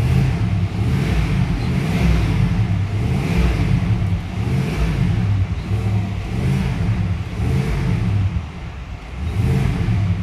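Freshly overhauled Chevrolet Suburban engine revved in repeated throttle blips, each rise and fall about every second or two. The throttle is being snapped open and released to bring out a misfire on cylinder 4 that shows only above idle.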